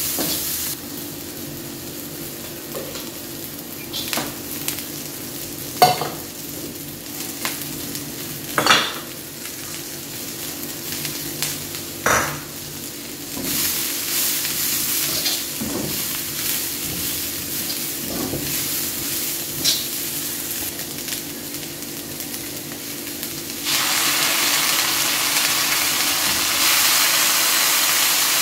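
Vegetables frying in a black iron wok: a steady sizzle, with a metal spatula scraping and clicking against the pan now and then. Near the end the sizzle turns louder and hissier as sauce goes into the hot pan.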